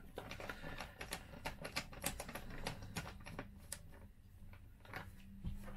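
Light, irregular clicks and taps, several a second, from small plastic and metal parts of a car instrument cluster being handled during disassembly.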